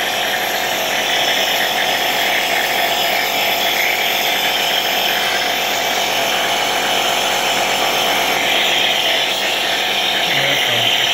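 Electric compressor nebulizer running steadily, pushing medicated mist through a tube to a mask held over a puppy's muzzle to loosen its phlegm.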